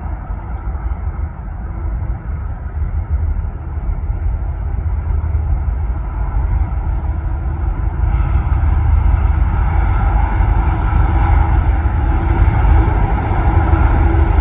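Diesel locomotives of an approaching CN freight train, a steady deep engine rumble that grows louder. It turns brighter and louder from about eight seconds in as the lead unit comes out from behind the sound wall.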